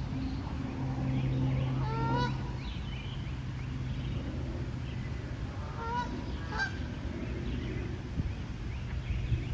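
Canada geese honking: short, rising calls, loudest about two seconds in and again around six seconds in, over a low steady hum.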